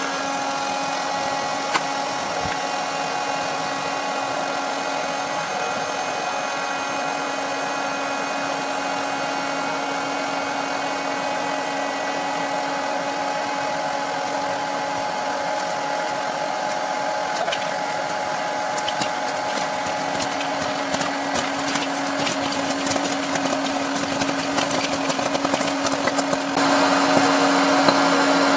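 Electric hot-air popcorn maker's fan and heater running with a steady whirring hum. Partway through, kernels begin popping in sharp, scattered cracks that come faster toward the end and grow louder.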